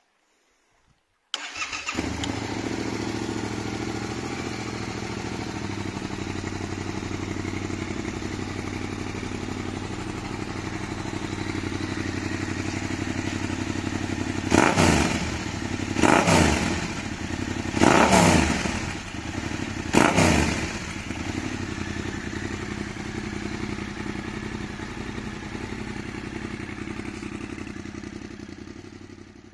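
Yamaha Tracer 7's 689 cc parallel-twin engine, running through an Arrow full exhaust system with baffle and catalytic converter, starts about a second in and idles steadily. It is revved briefly four times about halfway through, settles back to idle, and dies away near the end.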